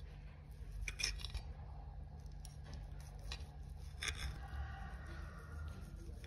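A metal fork clicking and scraping against a plate as it cuts into and lifts a piece of omelette, a few short sharp clicks over a low steady hum.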